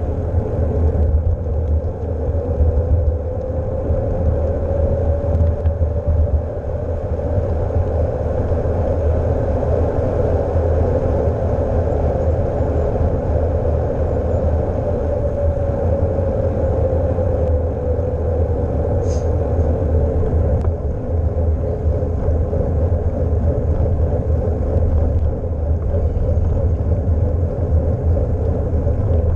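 Riding noise on a bicycle-mounted GoPro: a steady low rumble of wind on the microphone and tyres on asphalt. A hum in it slowly rises and then falls in pitch.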